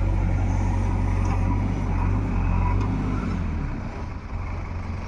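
Heavy diesel engine running steadily with a deep hum, dropping away and getting quieter about three and a half seconds in.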